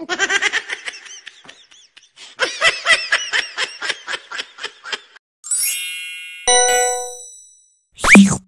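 A cartoon child's giggling laugh in quick repeated pulses, about four or five a second, in two runs. A rising sparkly chime effect and a single ringing ding follow. Near the end comes a brief, loud sound whose tone sweeps steeply downward.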